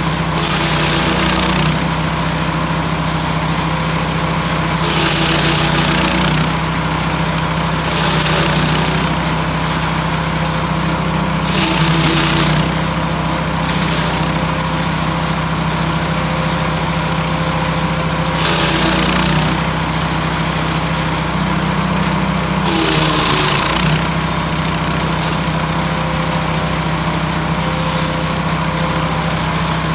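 Lumag HC10 portable wood chipper running steadily, with about seven short, loud bursts of chipping as wood is fed through. The engine note dips under load during each burst.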